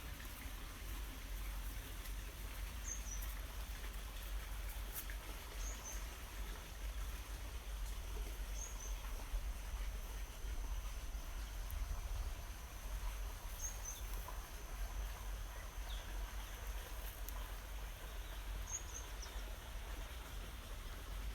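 Faint outdoor ambience: a small bird gives a short, high two-note chirp every few seconds over a low steady rumble.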